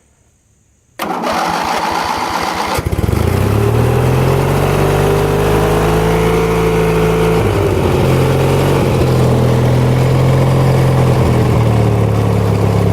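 Ford YT16 riding mower engine cranked by the starter for about two seconds, then catching and running steadily on full choke, its pitch wavering slightly.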